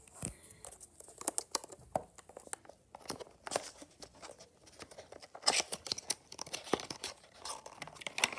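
Cardboard box and clear plastic blister packaging of a 1:64-scale diecast car crinkling and crackling as it is opened by hand, with scattered small clicks. The handling is busiest about five and a half seconds in and again at the end.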